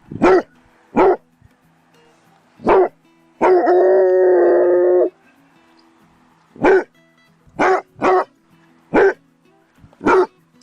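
Basset hound barking in single loud barks, three at first and five more later, with one long baying howl of about a second and a half in the middle.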